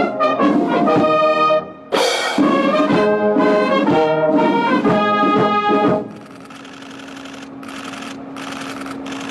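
Military brass band playing a ceremonial piece, with loud held and changing brass notes. About six seconds in the music drops away to a much quieter passage: a single held low note over background noise.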